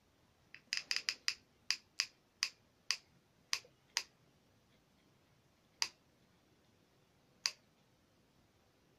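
Sharp clicks from a hot glue gun's trigger feed being worked: about a dozen in quick succession, slowing as they go, then two single clicks a couple of seconds apart.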